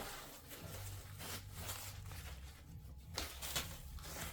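Rustling and crinkling as the mower's mesh grass catcher bag on its metal frame is handled, with a few light clicks. A low steady hum runs underneath.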